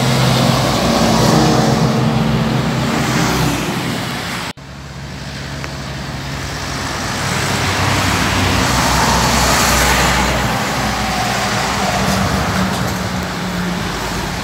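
Heavy diesel trucks passing close by on a highway. First an International tractor-trailer's engine runs steadily. About four and a half seconds in the sound cuts off abruptly, and another truck's engine and tyre noise build as it approaches.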